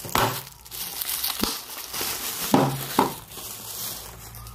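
Plastic bubble wrap crinkling as it is pulled off cosmetic tubes by hand, with a few sharp knocks along the way. The crinkling dies down near the end.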